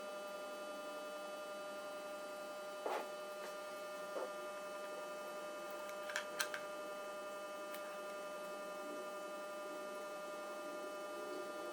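Steady electrical hum made of several even tones, with a few light clicks and taps scattered through it.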